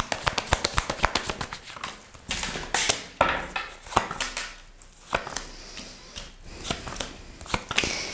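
Tarot cards shuffled by hand: a rapid run of flicking clicks over the first two seconds, then the cards are slid and squared with scattered taps and short rustles.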